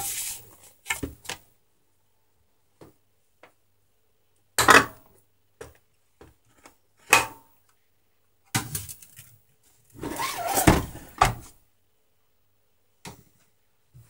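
Plastic clicks, snaps and knocks from a Scarlett SC-1081 vacuum cleaner's tight-fitting plastic cover being pried loose with a screwdriver and its housing being handled. The sharp sounds come irregularly, the loudest about five seconds in and a busy cluster around ten to eleven seconds.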